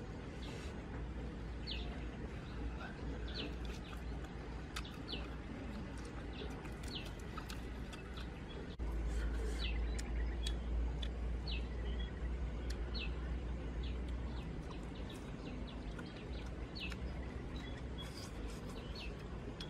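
A bird repeating a short high chirp about once every second or so, over a low rumble that swells for a few seconds near the middle.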